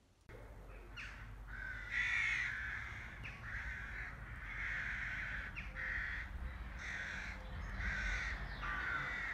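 A crow cawing repeatedly, a run of about ten short harsh calls beginning about a second in, over a faint low rumble.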